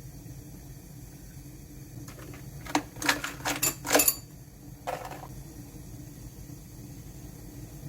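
Tableware clinking during a meal: a quick run of clinks and clatters about three seconds in, then one more a second later, over a steady low hum.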